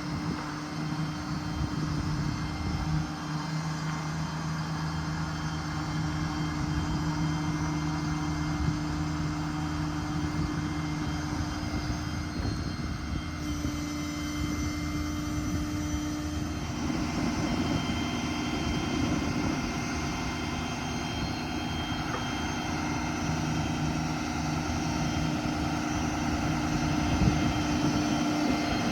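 Ford 6.7 Power Stroke diesel service truck running, driving its hydraulic crane system, with a steady mechanical drone. Its hum shifts in pitch a few times as the crane functions are operated.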